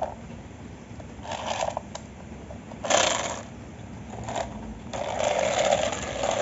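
Battery-operated toy rabbit's motor and gears whirring, with its plastic parts rattling, in several bursts; the longest burst comes in the second half as the toy drives across the floor.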